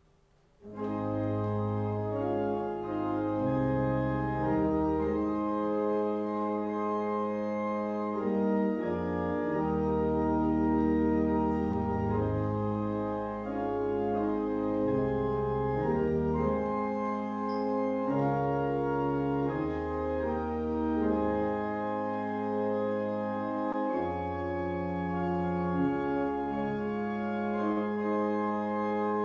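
Church organ playing a hymn in slow, sustained chords with a steady bass line, starting right after a brief silence.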